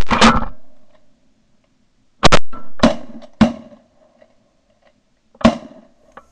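Shotguns firing at ducks overhead in a ragged volley: a quick burst of several loud shots at the start, then a close pair about two seconds in, single shots about three and three and a half seconds in, and one last shot near five and a half seconds.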